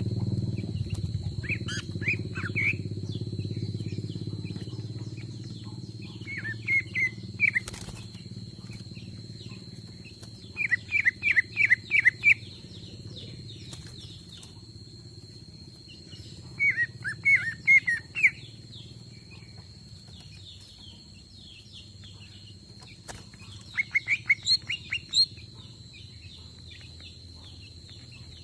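Greater green leafbird (cucak ijo jumbo) singing: five bursts of four to six quick, sharp notes, a few seconds apart. Behind it are a steady high-pitched whine and a low rumble that fades over the first few seconds.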